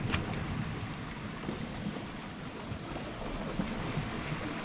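Wind buffeting the microphone, a fluctuating low rumble, over the steady wash of the sea. There is a single sharp click just after the start.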